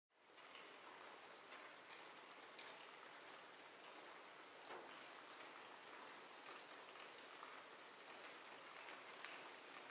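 Faint, steady rainfall with many scattered little drop ticks, fading in at the start.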